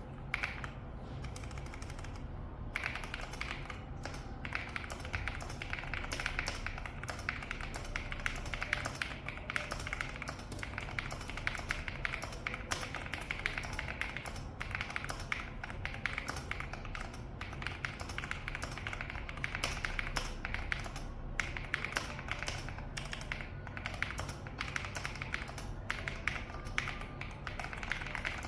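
Fast typing on a mechanical keyboard fitted with PBT dye-sub keycaps: a dense, continuous run of key clacks that picks up and gets brighter about two and a half seconds in.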